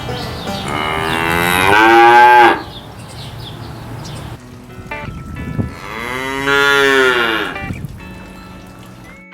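Cow mooing twice: a long, loud moo that cuts off abruptly, then a second long moo a few seconds later.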